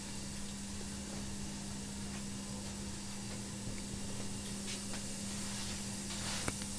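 Steady low hum and hiss of room tone, with a few light clicks in the second half, the sharpest about six and a half seconds in.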